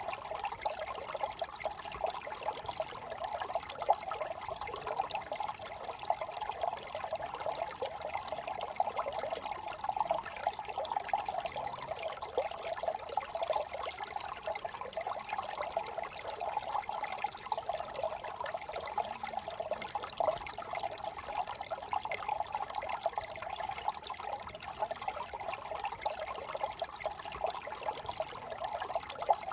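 A small brook trickling and babbling over stones, steady and unbroken.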